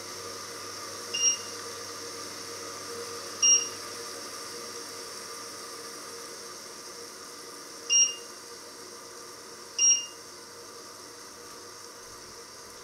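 Four short electronic beeps from a glass-ceramic hob's touch controls as the power level is pressed down from 9 to 7. They come in two pairs, about two seconds apart within each pair, over a steady background hiss from the steaming pot.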